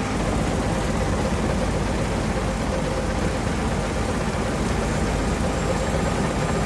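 John Deere S785i combine harvester running steadily while cutting wheat, its engine and threshing machinery making an even mechanical drone.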